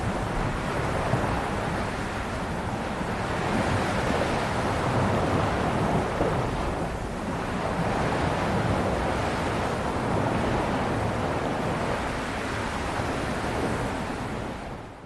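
Ocean waves surging and washing in as a continuous rush of surf, swelling and easing, fading out near the end.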